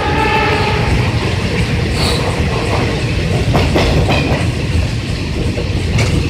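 Passenger train running at speed, heard from inside a carriage: a steady rumble of wheels on track with rail clatter. A short horn blast sounds in the first second.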